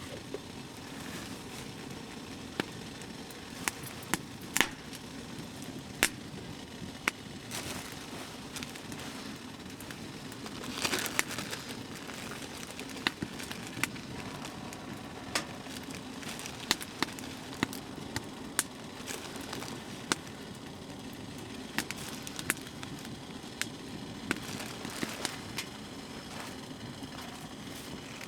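Wood fire crackling in a small tent wood stove, with irregular sharp pops over a steady low rush.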